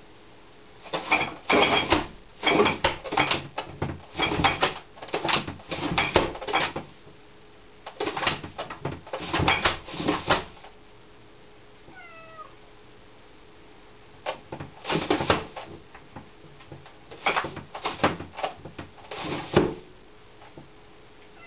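A cat struggling through a small plastic catflap, the flap knocking and the plastic carrier bags of recycling bottles beside it rustling and rattling in two long noisy spells. Between them, a single short meow.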